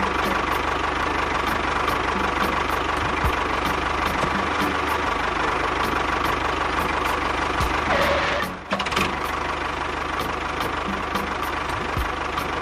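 Small motor of a homemade mini tractor running steadily with a steady whine and faint regular ticking, dropping out briefly about eight and a half seconds in.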